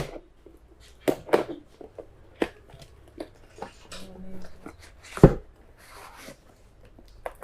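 Packaging of a motorcycle chain sprocket kit being opened and its parts handled: scattered rustles and clicks, with one sharp knock about five seconds in.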